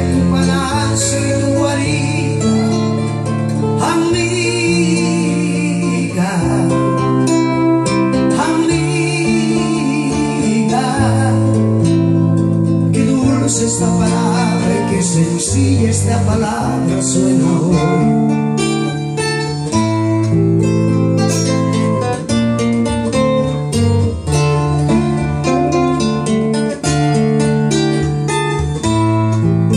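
A man singing into a microphone while picking and strumming chords on a nylon-string silent guitar with a frame body.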